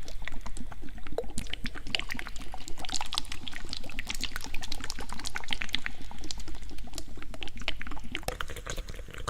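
Close-miked ASMR licking and wet mouth sounds: a dense, continuous run of small wet clicks and smacks.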